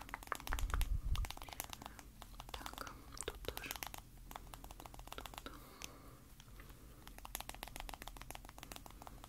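Big powder brush and powder being worked close to the microphone: dense, rapid crackles and clicks, with a few low thuds about a second in.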